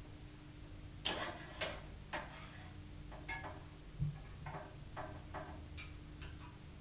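Plastic clips of a fabric grass-catcher bag clicking over the metal catcher frame as a flat-blade screwdriver levers them on. About ten sharp clicks, irregularly spaced, with a dull knock about four seconds in.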